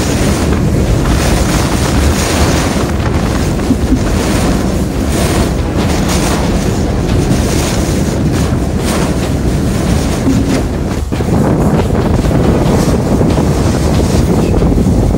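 Category 4 hurricane eyewall wind blowing with driving rain, buffeting the microphone in a dense, loud rush. It eases briefly about eleven seconds in, then strengthens again.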